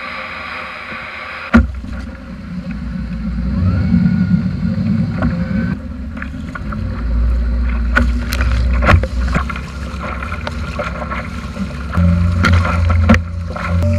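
Small outboard motor on a fishing kayak running as the kayak moves across the water, with water rushing past the hull; the engine hum is steadiest and strongest near the end. A few sharp knocks, the loudest about a second and a half in.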